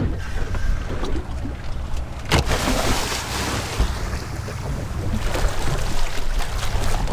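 A splash about two seconds in as a snorkeler in fins drops from the boat into the sea, followed by a second or so of churning water. Wind rumbles on the microphone and water moves around the hull throughout.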